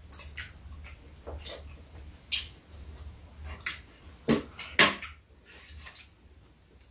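Metal spoons and chopsticks clicking against bowls and a metal tray table while two people eat, in scattered light clinks, with two louder clinks about two-thirds of the way through. A low steady hum runs underneath.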